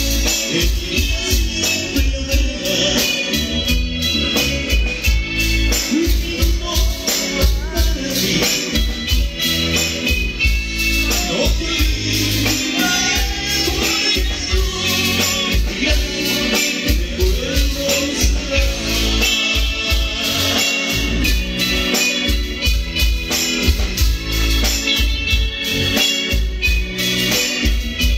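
Live band music played loud through a PA: an electronic keyboard with an organ sound over pulsing bass, with a rattling shaker keeping a fast, steady beat.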